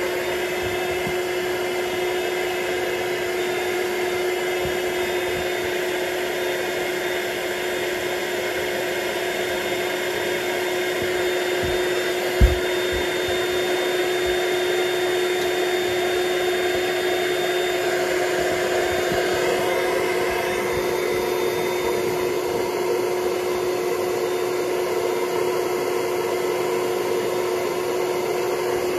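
Built-in electric air pump of an Intex Dura-Beam airbed running steadily as it inflates the mattress: a constant motor hum with rushing air. A single short thump about twelve seconds in.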